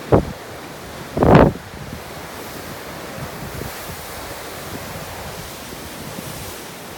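Storm wind rushing steadily over the sea, with gusts hitting the microphone in two loud blasts, a short one just after the start and a longer, louder one around a second and a half in.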